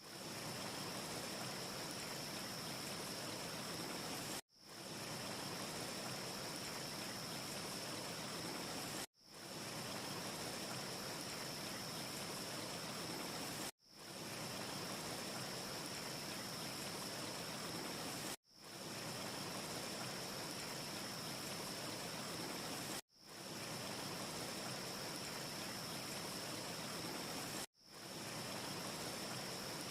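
Steady rushing hiss of a looped ambience track with a faint steady high tone in it; about every four and a half seconds it cuts out suddenly and fades back in.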